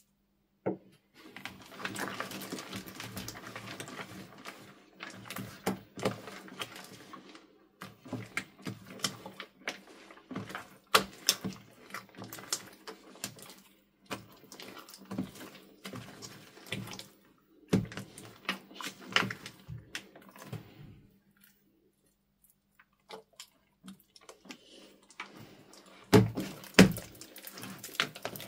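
Thick, wet slime being stirred and folded with a silicone spatula in a plastic bowl, making irregular sticky squelches and scrapes. After a short pause, hands squeeze and knead it near the end with louder squishes.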